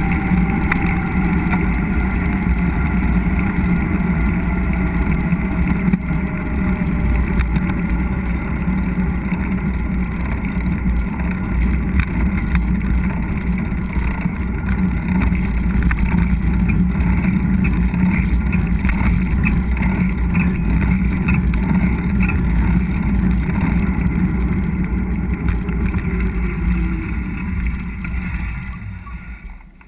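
Steady rolling rumble of a mountain bike ride, with tyre noise and wind buffeting on the camera microphone and a faint tone that slowly falls in pitch. It fades out near the end.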